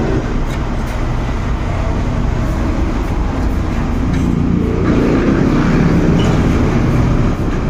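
A vehicle engine running steadily, a low hum that swells a little about five seconds in.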